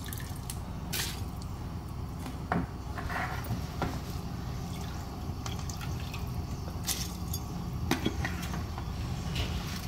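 Soaked rice being tipped into a steel pot of hot water: soft watery splashing and dripping, with a few short sharp clicks, over a low steady hum.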